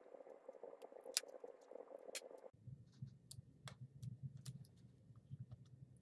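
Faint, scattered clicks and taps of a small screwdriver and plastic parts as the internal battery of a Lenovo ThinkPad T460s laptop is unscrewed and lifted out. There is a sharper click about a second in, over a low steady hum of room noise that changes abruptly about two and a half seconds in.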